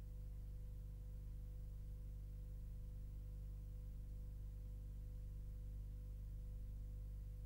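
Faint steady low hum with a thin constant tone and hiss, unchanging throughout and with no distinct events.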